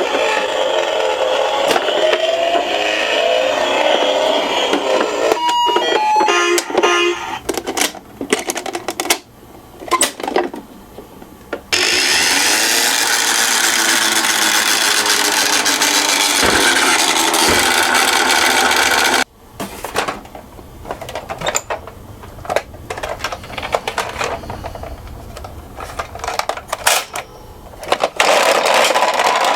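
Toy minicars running with a warbling electronic siren in loud stretches, broken by plastic clicking and rattling.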